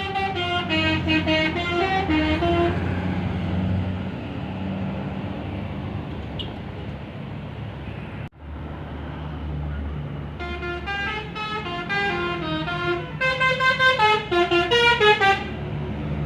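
Bus 'telolet' multi-tone horns playing quick tunes of stepping notes, once at the start and again from about ten seconds in. Between the tunes the buses' engines run with a steady low rumble.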